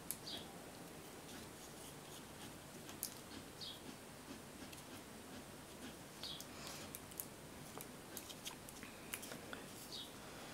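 Faint, scattered small clicks and crinkles of a thin clear plastic candy mold being pressed together and handled.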